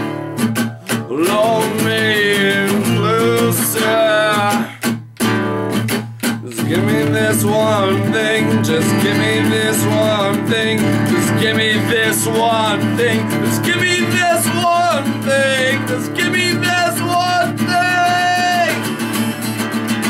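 Acoustic guitar strummed hard, in choppy stop-start strokes for the first six seconds or so, then steady. A voice sings long, wavering notes over it.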